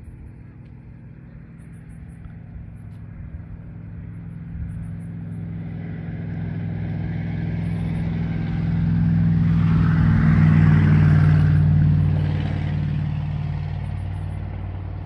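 A car driving past: engine and tyre noise swell as it approaches, are loudest about ten seconds in, then fade as it moves away.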